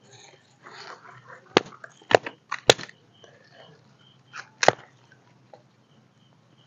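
Dry firewood sticks being broken up for a small campfire: a series of sharp cracks and snaps, four of them loud, with softer rustling of the wood being handled between them.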